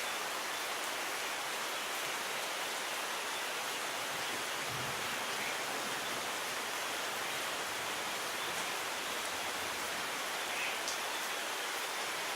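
Steady rain: an even hiss with a few faint drop taps.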